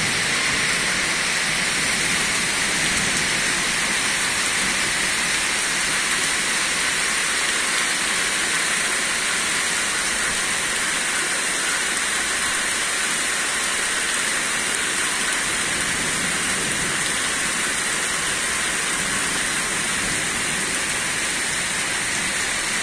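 Heavy rain pouring steadily onto dense tree foliage and the ground, an even, unbroken hiss.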